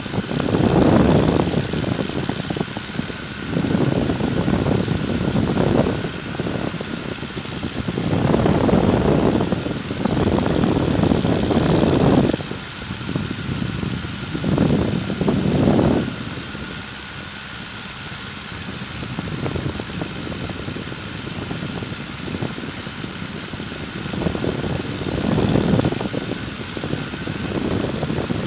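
De Havilland Tiger Moth's Gipsy Major four-cylinder engine running steadily in flight, heard in the open cockpit with the slipstream buffeting the microphone in repeated surges every few seconds.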